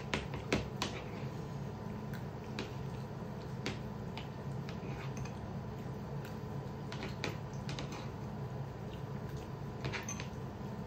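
Metal spoons clicking and scraping against plates as two people scoop and eat rice, in scattered irregular clicks, several close together at the start, over a steady low hum.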